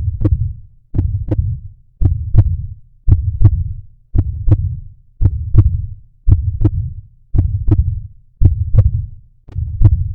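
Heartbeat sound effect: a steady, slow rhythm of paired low thumps, a double beat a little under once a second.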